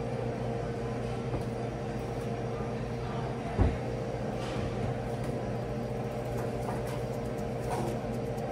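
Steady hum of a kitchen ventilation fan, with a single low thump about three and a half seconds in.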